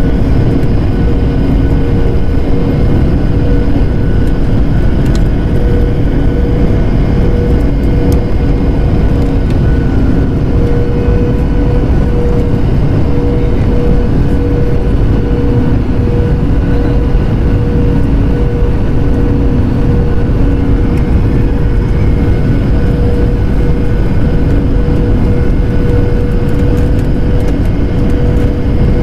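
Airliner cabin noise on final approach, heard from a window seat over the wing: the steady rush of jet engines and airflow with a constant droning hum.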